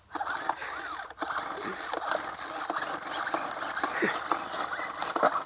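Recoil starter of an old handheld gas leaf blower being yanked again and again, the cord whirring with each pull, while the engine fails to catch.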